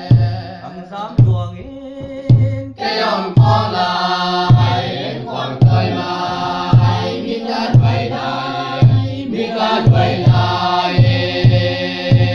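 A group of voices singing a traditional song together for a circle dance, over a low, steady drum beat about once a second. The beat quickens to about twice a second near the end.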